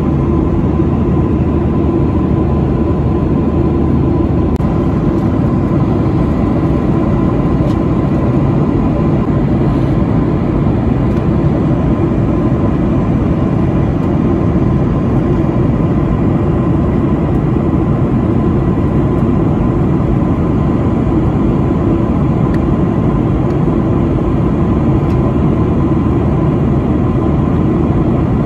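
Steady cabin noise of a Boeing 737-900 airliner in cruise: its CFM56 engines and the airflow make a constant low rushing noise heard from a window seat over the wing, with a thin steady whine running through it.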